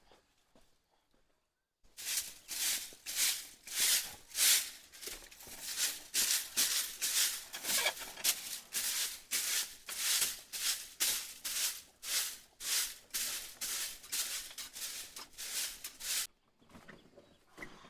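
Rhythmic scraping strokes, about two a second, starting abruptly about two seconds in and stopping suddenly near the end, like a hand tool worked back and forth against a surface.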